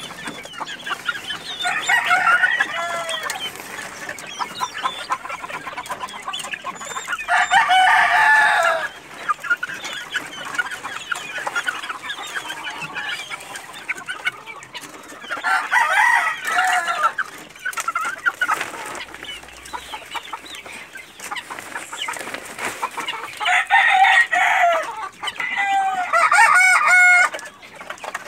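Gamefowl roosters crowing about five times, a few seconds apart, over constant clucking and chirping of chickens.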